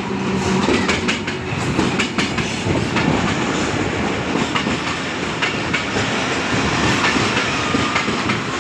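Pakistan Railways diesel locomotive passing close by, its engine hum fading out about a second in. Then passenger coaches roll past with a steady rumble and a run of clicks and clatter from the wheels over the rail joints.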